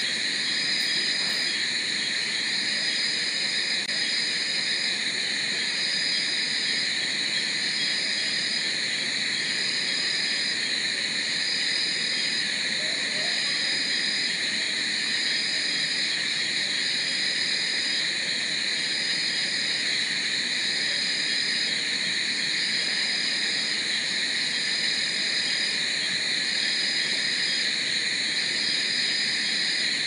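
Night-time tropical forest chorus of insects and frogs: a dense, steady, high-pitched trilling, with one caller's short high note repeating about every two seconds.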